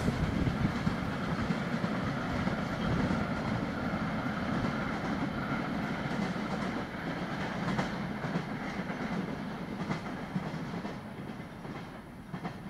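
Intermodal container freight train rolling away, its wheels rumbling with occasional clicks over the rail joints, the sound fading gradually as it recedes.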